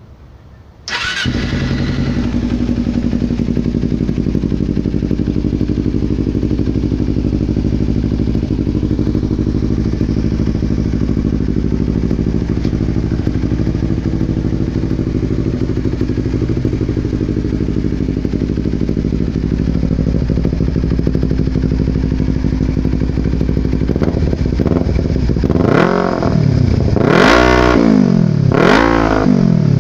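250R motorcycle engine breathing through a slip-on exhaust with the baffle removed. It starts up suddenly about a second in and idles steadily, then near the end it is revved several times in quick blips, the pitch rising and falling each time.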